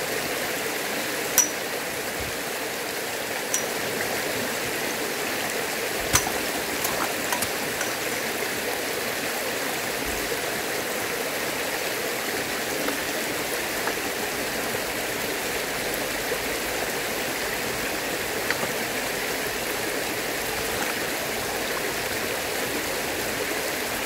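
Shallow rocky stream running steadily over stones and small cascades. A few sharp clicks or knocks in the first several seconds.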